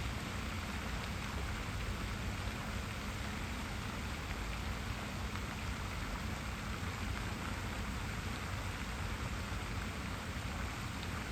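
Water in a garden water feature splashing and running steadily, an even rushing noise that does not change.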